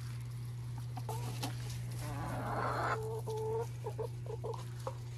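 Backyard hens clucking in short repeated calls, heaviest about three seconds in, with a brief rustling noise just before and a steady low hum underneath.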